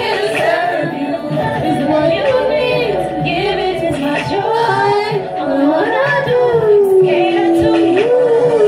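Women singing into handheld microphones, the melody ending in a long held note that slowly falls, then steps back up near the end.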